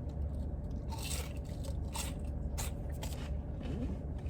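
Crisp, battered onion rings crunching as they are bitten and chewed, several sharp crunches a second or so apart, over a steady low hum.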